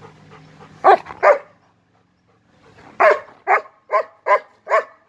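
German shepherd barking: two barks about a second in, then a run of five barks at about two a second.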